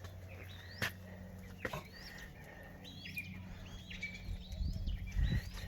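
A bird calling over and over in short rising-and-falling chirps, about two a second. Two sharp clicks come about one and two seconds in, and a low rumbling noise builds near the end.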